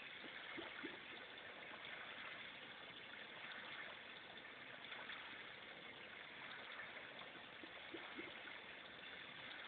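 Near silence: a faint steady hiss of room tone, with a few soft, brief small sounds about a second in and again near the end.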